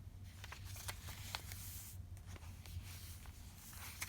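Faint paper rustling and small scattered clicks as the pages and paper inserts of a handmade junk journal are handled and turned, over a low steady hum.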